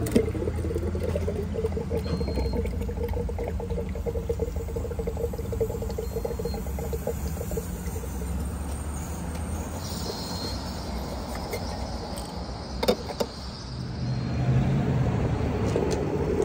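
A Ford Mustang's engine running steadily with a low hum. There are two sharp knocks about thirteen seconds in, and the sound grows louder near the end.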